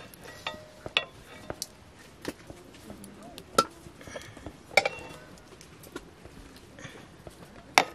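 A metal ladle and serving spoon clink and scrape against a metal wok and a pot of rice. The clinks are scattered and sharp, with the loudest at about three and a half, five and eight seconds in.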